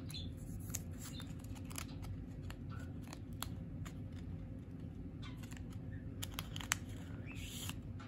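Plastic wrapping around a small stack of photocards being peeled open by hand, with scattered small crinkles and clicks over a low steady hum.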